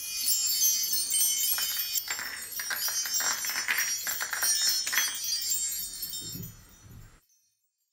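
A twinkling magic sound effect like wind chimes shimmers for about seven seconds and fades out near the end, marking the magic sprinkles turning the painting into a real pen.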